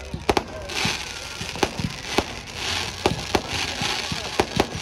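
Aerial fireworks going off: about eight sharp bangs at uneven intervals, with stretches of crackling from glittering bursts between them.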